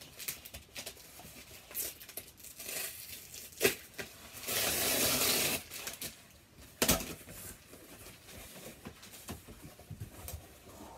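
A parcel being opened by hand: scattered rustles and knocks, with a long tearing sound lasting about a second beginning around four and a half seconds in, and a sharp knock a little later.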